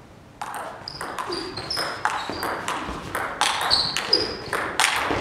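Table tennis rally: the ball clicks sharply off bats and table in quick alternation, about two hits a second, with short high squeaks between the hits.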